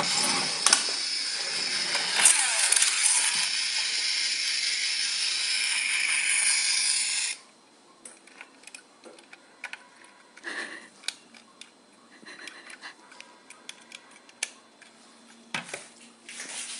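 Toy London double-decker bus rattling and whirring steadily for about seven seconds, then cutting off suddenly. After that come light clicks and taps as the toy is handled.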